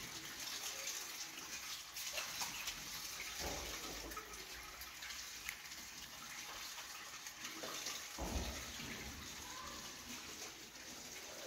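Water running steadily, as from a tap, with a few dull knocks of things being handled, the loudest about a third of the way in and again about two-thirds in.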